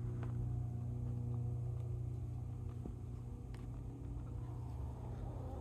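A steady low hum with several constant tones above it, from a running motor or machine.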